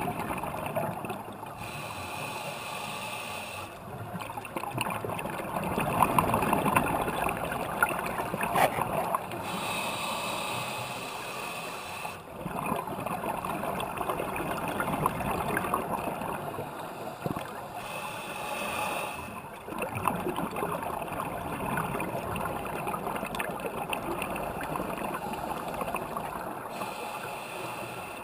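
Scuba regulator breathing heard underwater through a GoPro housing: exhaled air bubbling and gurgling in a slow cycle of breaths about every seven or eight seconds.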